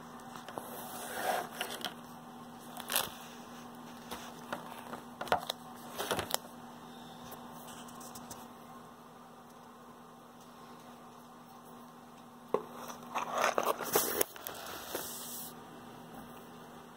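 Scattered handling noises: short clicks and crackly rustles in a few bursts, the busiest stretch near the end, over a steady low electrical hum.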